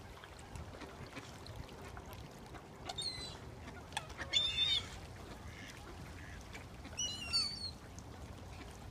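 Waterbirds calling: three short bursts of high, harsh calls about three, four and a half and seven seconds in, the middle one the loudest.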